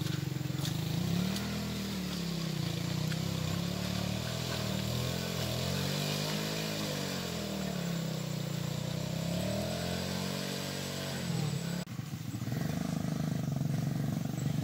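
Small motorcycle engine revving up and falling back several times, a few seconds per swell. After a sudden break near the end, a motorcycle engine runs more steadily.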